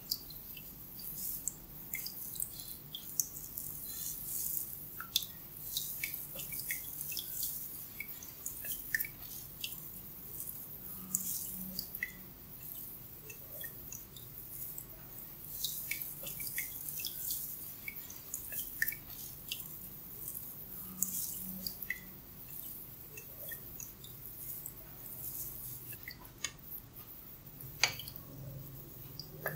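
Hands massaging a head and working through the hair, making irregular, frequent small crackles and clicks from the hair and scalp.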